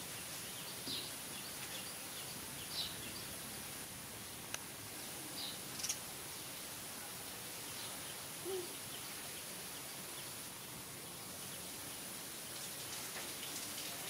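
Quiet outdoor background noise with a steady high hiss, broken by a few brief, faint high chirps in the first half and one sharp click a little before the middle.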